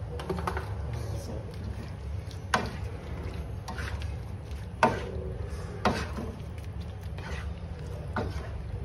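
Spatula stirring and tossing french beans and pork in curry sauce in a wok, with five or six sharp knocks of the spatula against the pan, the loudest about five seconds in, over a steady low hum.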